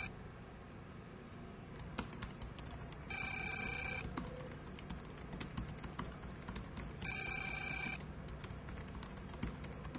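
Typing on a laptop keyboard, a patter of soft key clicks. A telephone rings twice over it, each ring an electronic tone about a second long, about four seconds apart.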